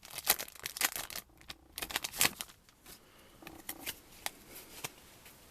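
Yu-Gi-Oh trading cards and booster-pack foil being handled: a dense run of rustles and flicks over the first two and a half seconds, then a few scattered clicks.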